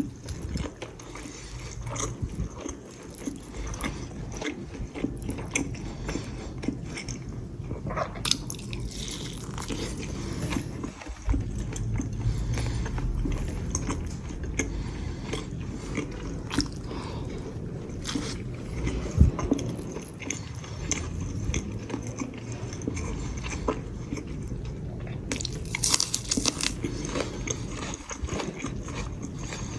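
Someone biting and chewing crunchy food, with irregular crunches and clicks throughout.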